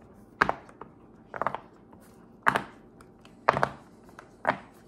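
Bubbles of a round silicone pop-it fidget toy being pressed in one by one, each giving a sharp pop. There are about five pops, roughly one a second, some of them doubled.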